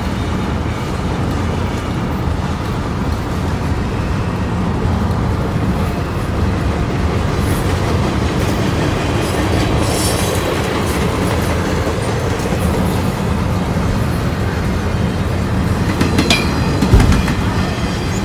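Freight train rolling on the rails, a steady rumble of wheels and cars, with one heavy thump near the end.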